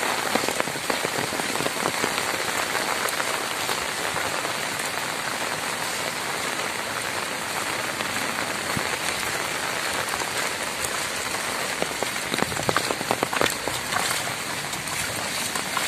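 Heavy rain falling steadily on a flooded road, a dense, even hiss of drops striking water and wet ground, with a run of sharper, louder taps about three-quarters of the way through.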